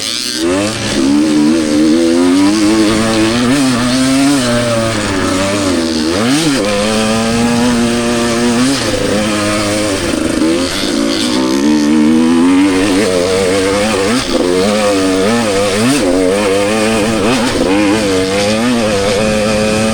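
Two-stroke enduro dirt bike engine under load, its pitch climbing and dropping over and over as the throttle is opened and closed.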